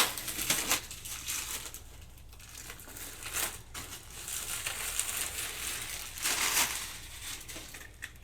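Packaging crinkling and rustling in irregular bursts as a just-opened box of fireworks is unpacked by hand, with a sharp knock at the very start.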